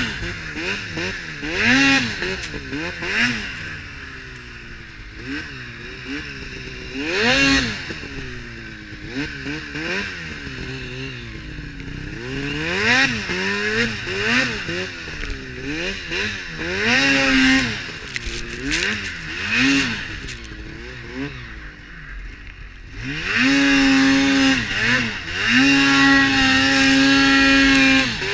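A new Arctic Cat Mountain Cat 8000 snowmobile's two-stroke twin engine, revving up and dropping back over and over as the throttle is worked in deep snow. Near the end it is held at high revs for several seconds.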